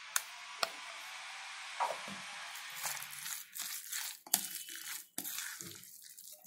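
Steel spoon stirring grated raw mango, sliced onion and spice paste in a bowl: moist crunching as the mixture is turned over, with a few sharp clicks of the spoon against the bowl.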